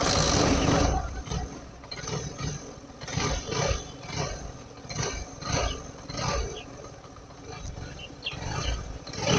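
Bajaj Boxer motorcycle's single-cylinder four-stroke engine running, revved up and down in uneven surges.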